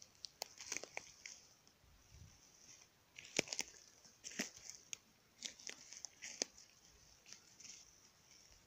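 Footsteps crunching and rustling through dry leaves, twigs and pine needles on a forest floor, with scattered sharp cracks, the loudest a little past the middle.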